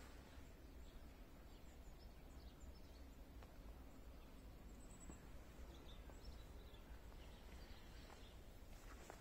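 Near silence: faint outdoor background rumble with a few faint, high bird chirps scattered through.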